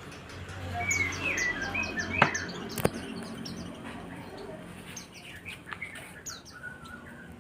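White-eyes (pleci) calling: many rapid, short, high chirps with a few lower whistled notes, the decoy's calls answered by wild birds. A low rumble swells in the first couple of seconds, and two sharp clicks come about two and three seconds in.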